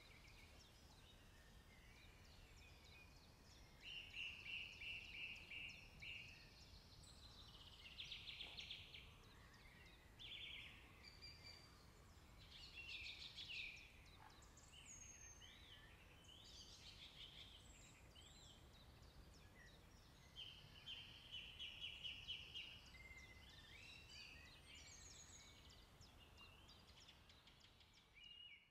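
Small songbirds singing in short, separate phrases, several of them fast trills, over a faint steady low background rumble.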